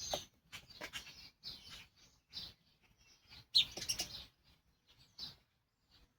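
Faint, scattered bird chirps with a few light clicks, loudest about three and a half seconds in.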